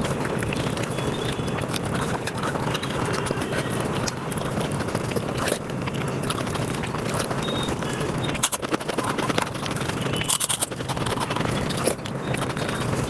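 Eating sounds sped up to five times normal speed: rapid, dense chewing, smacking and squelching of rice and curry, with quick clicks running together into a continuous clatter.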